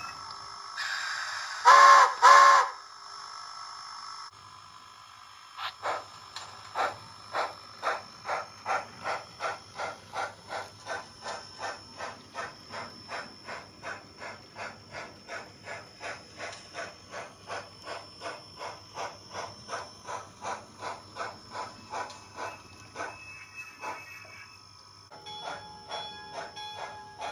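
Sound-equipped HOn3 model of a Colorado & Southern 2-6-0 Mogul steam locomotive: a hiss with two short loud whistle toots, then steady steam chuffs as it pulls away. The chuffs start at about two a second and quicken to about three a second, then fade near the end.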